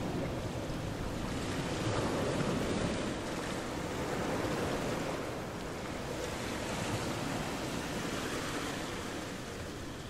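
Steady rushing outdoor noise that swells twice in the first half and then eases a little.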